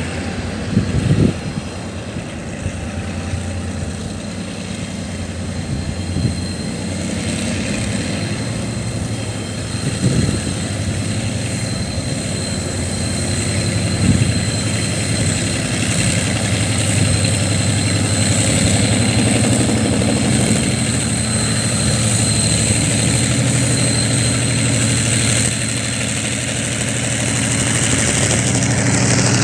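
A heavy engine running steadily with a low hum, getting louder over the second half, with a few sharp knocks in the first couple of seconds.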